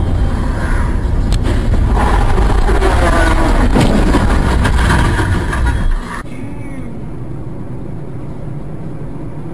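Car road and engine noise as picked up by a dashcam, with a sharp knock about a second and a half in and another near the middle, amid wavering squeal-like tones. About six seconds in the sound cuts abruptly to a quieter, steady drone of road noise.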